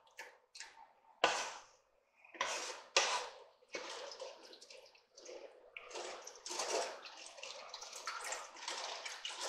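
Wooden spoon stirring chicken broth into a roux with onion, celery and bell pepper in a pot: liquid sloshing in irregular strokes, with a few sharper clicks of the spoon against the pot.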